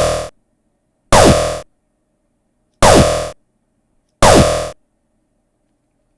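Synthesized laser blaster shot, a sawtooth chirp falling in pitch layered with filtered white noise, played four times over about five seconds. Each shot is loud and sharp at the start and fades out within about half a second.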